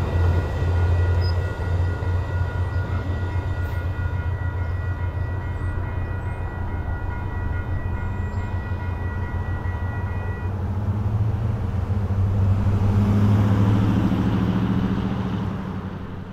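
VIA Rail passenger train rolling away into the distance, a steady low rumble with thin high ringing tones over it that die out about ten seconds in. The sound swells again for a few seconds near the end, then fades out.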